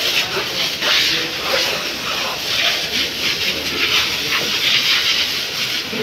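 Water hose spraying a jet onto cattle: a continuous hiss that swells and fades as the spray sweeps across their hides and spatters on the wet floor.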